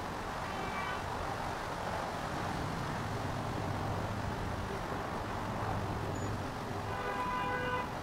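Steady outdoor city traffic noise, with a low rumble that swells in the middle. Brief faint pitched sounds come near the start and again near the end.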